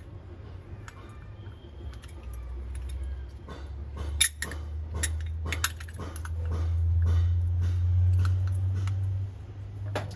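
Brass items clinking and tapping as they are handled, with many light metallic clicks. Underneath runs a low rumble that swells and then drops off suddenly about nine seconds in.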